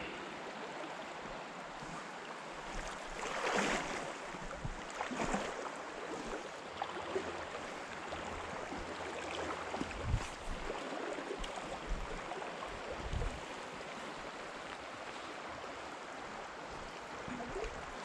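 Riffled freestone trout stream flowing steadily, a continuous rush of moving water close by, with a few brief swells and low bumps.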